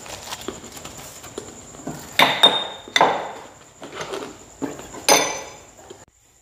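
Kitchen utensil knocking against a small plastic strainer and pitcher while straining juice: about six sharp clacks with brief ringing, between about two and five seconds in.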